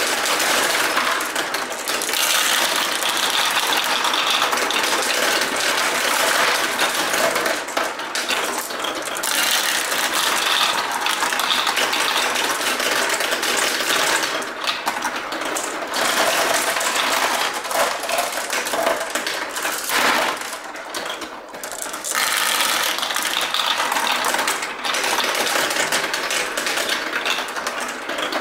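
Many glass marbles rolling and clattering down a plastic marble run made of Duplo blocks. The rattle is dense and continuous, with a few brief lulls.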